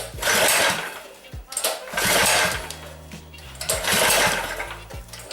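Small single-cylinder engine (a governor-removed 212cc Predator) running in three loud surges about two seconds apart, over background music with a bass line.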